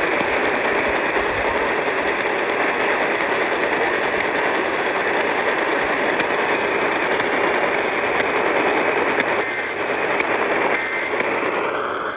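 Steady radio static hiss from a weak transmitter whose alert is barely audible beneath it; a few faint short tones show through near the end.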